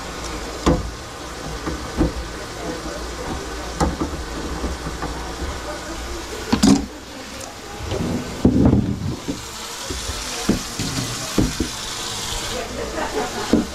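Scattered knocks and clatter from work on a kitchen sink drain, with a few louder bangs. Partway through, a tap runs into the sink for about three seconds and stops suddenly.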